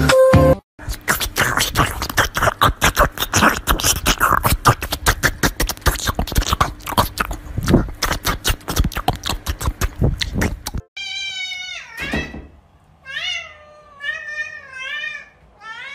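A small fluffy dog chewing a slice of watermelon, a dense run of quick, irregular crunches lasting about ten seconds. Then a cat meows several times in short calls that bend in pitch.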